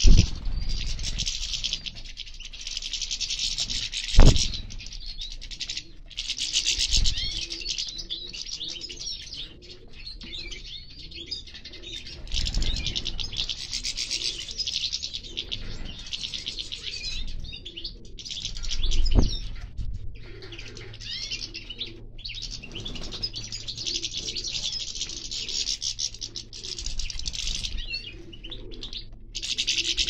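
A flock of European goldfinches twittering and chirping continuously, with a few loud low thumps about four, twelve and nineteen seconds in.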